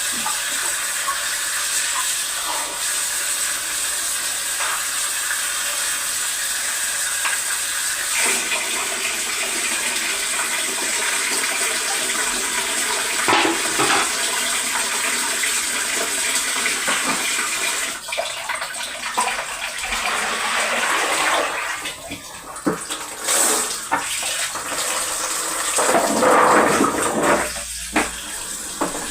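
Kitchen tap running steadily into a sink, with a few light knocks. In the last several seconds the flow becomes uneven and splashy as things are rinsed under it.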